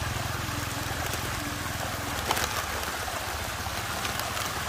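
Water swirling and gurgling in an artificial whirlpool, a steady rushing noise over a low hum. A short, louder splash comes a little after two seconds in.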